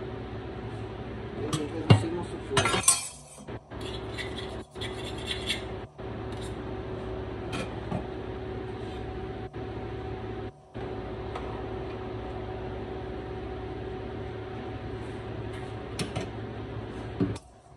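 Stovetop cookware sounds: a sharp clink about two seconds in and a short clatter just after, then scattered faint clicks over a steady hum.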